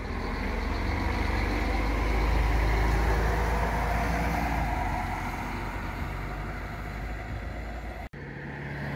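Three-axle double-decker coach's diesel engine running as it drives past close by and pulls away, loudest about two and a half seconds in, then slowly fading. The sound cuts off abruptly near the end.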